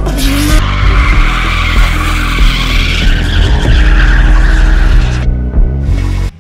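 Drifting BMW E36 with its 2.8-litre inline-six running under load and its rear tyres screeching as the car slides sideways. About five seconds in the tyre screech stops, leaving the engine, and then the sound cuts off suddenly.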